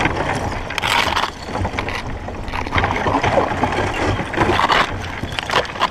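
Sea kayak pushing against floating river ice: paddle splashing in the water, and knocks and scrapes as the hull is driven onto an ice slab that it cannot ride over.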